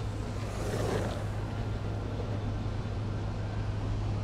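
Street traffic: a steady low hum under road noise, with a vehicle passing about a second in.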